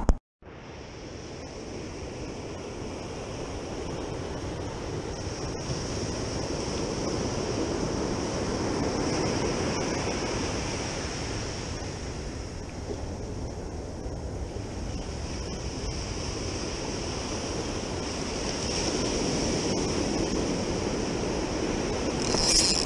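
Ocean surf breaking and washing up a sandy beach, a steady rushing wash that swells and eases as the waves come in.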